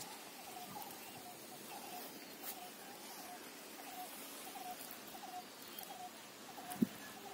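Faint repeated animal calls, one short note about every half second at a steady pace. A single short knock comes near the end.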